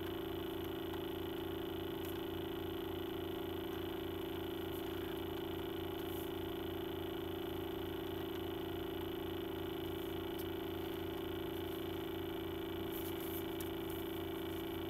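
A steady electrical hum, with a few faint clicks from a CD box set's packaging being worked at by hand to free a stuck disc.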